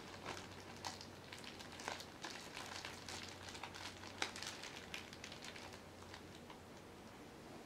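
Clear plastic bag crinkling and rustling as it is handled, in irregular small crackles; the rustling thins out near the end.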